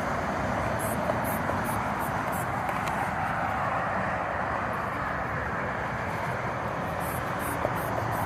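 Steady traffic noise, a continuous rush of vehicles and tyres on the road, with a couple of faint clicks.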